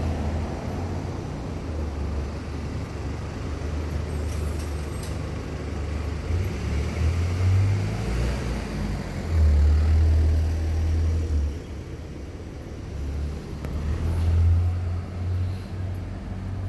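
Toshiba Smart Eco air-conditioner outdoor unit running, heard among street traffic, with a low rumble that swells and fades.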